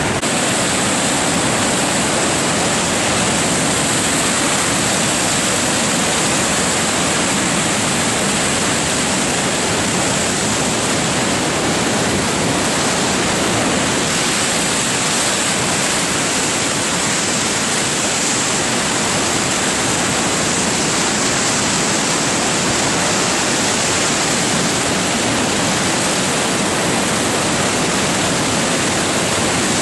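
Swollen floodwater rushing through a dam and churning into whitewater below it: a loud, steady rush of water without a break.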